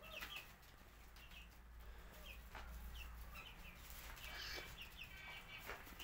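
Chickens clucking faintly: a scatter of short calls, busiest near the end.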